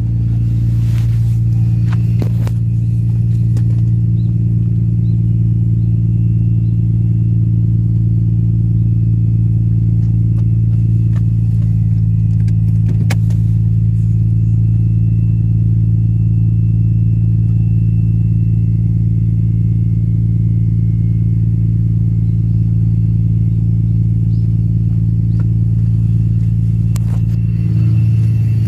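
Nissan R32 Skyline GT-R's RB26DETT twin-turbo straight-six running steadily just after a cold start on a freezing morning, with a loud steady drone the owner calls an abnormal noise, suspecting something frozen inside. A few short clicks and knocks come over it.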